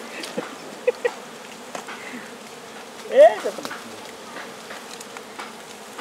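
A swarm of wild bees buzzing steadily around their ground nest as it is smoked open for honey. A few light knocks come about a second in, and a short rising cry, the loudest sound, about three seconds in.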